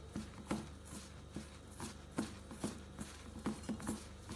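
A hand kneading and squeezing a crumbly gram-flour batter mix, still without water, in a stainless steel bowl: soft, irregular squishing and scraping strokes, about two or three a second.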